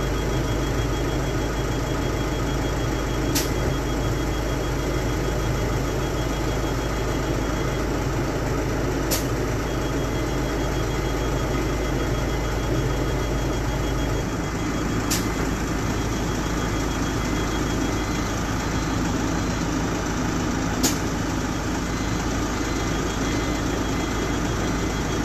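Ashok Leyland bus's diesel engine idling steadily, its low hum shifting a little about halfway through. A short sharp click comes about every six seconds, four times in all, from the pneumatic passenger door cycling.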